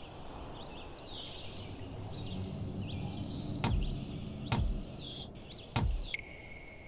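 Cartoon sound effects: short, sliding high chirps over a low rumble that swells in the middle, with three sharp hits in the second half and a steady high tone starting near the end.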